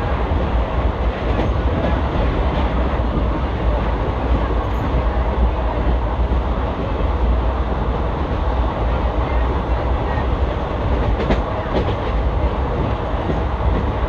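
Steady rumble of an ICF passenger coach's wheels running on the track, with a couple of faint clicks about eleven seconds in.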